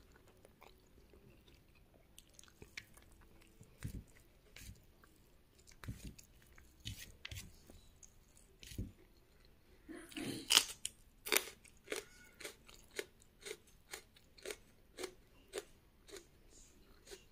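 Close-miked chewing of a rice meal, with crunching. After a fairly quiet first half with only scattered faint clicks, a steady run of chewing clicks about twice a second starts around ten seconds in, the loudest just after it begins.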